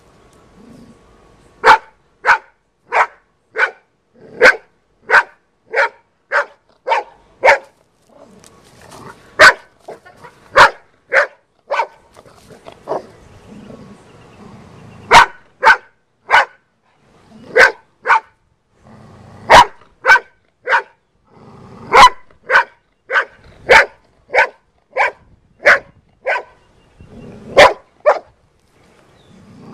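Golden retriever barking over and over while confronting a snake: short, sharp single barks about two a second, in runs of several with brief pauses between runs.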